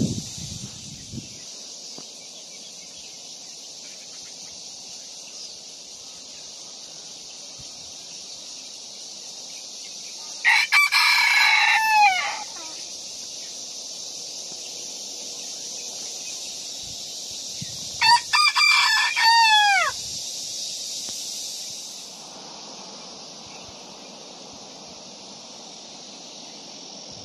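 Two rooster crows, each about two seconds long and dropping in pitch at the end, roughly eight seconds apart, over a steady high background hiss.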